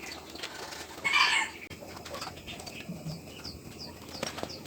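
Birds calling: a loud squawk about a second in, then a run of short, high chirps repeated a few times a second.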